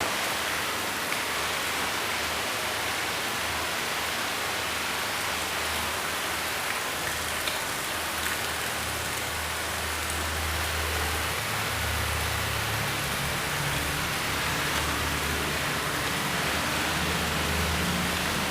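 Steady rain falling, an even hiss with scattered drop ticks. A low rumble runs underneath and swells from about halfway through.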